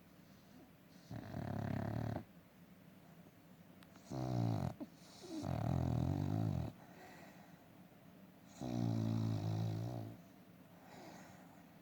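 Dog snoring: about four loud snores, each a second or so long and a few seconds apart, with a fainter one near the end.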